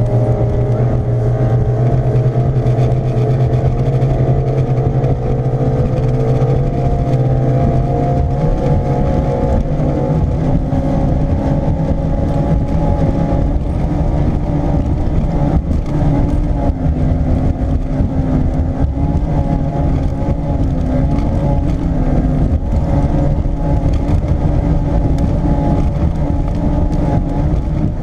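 Eliminator Daytona speedboat's V8 OMC two-stroke outboard running steadily at speed, with a dense low rumble under its engine note; the note changes about ten seconds in.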